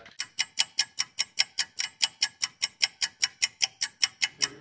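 Rapid, even mechanical ticking, about five to six sharp clicks a second, that stops abruptly near the end.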